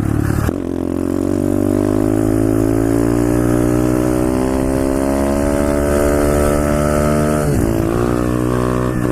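Pit bike engine under way, its pitch climbing slowly and steadily as the bike accelerates for about seven seconds, then dipping sharply and picking up again near the end.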